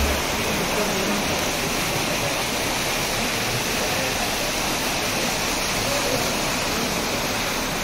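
Floodwater rushing steadily through an overflowing storm-water drain channel, a constant, even sound of fast-moving water.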